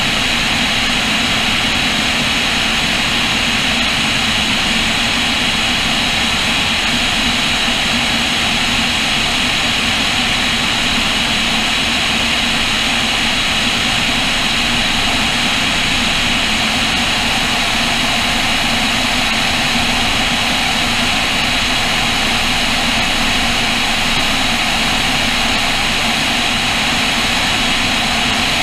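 Cessna O-2A in steady cruise flight: the constant drone of its push-pull twin piston engines and propellers, mixed with a heavy rush of air over the camera mounted outside on the airframe.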